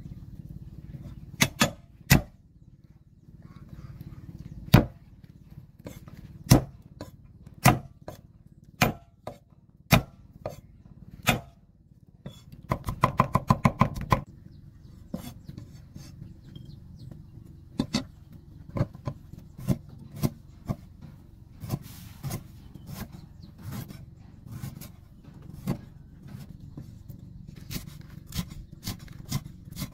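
Cleaver chopping on a thick round wooden chopping block. Single heavy chops come about a second apart, then a quick run of rapid chops about 13 seconds in, then lighter, quicker chopping through the rest.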